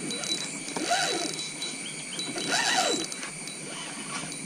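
Fishing reel whirring and clicking as line runs through it while a hooked carp is being played. Two whirs rise and fall in pitch, about a second and a half apart.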